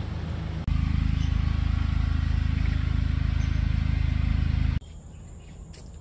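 A loud, low rumble with a fast flutter, which gets louder about a second in and cuts off abruptly near the end. After it, a steady, high-pitched insect drone remains.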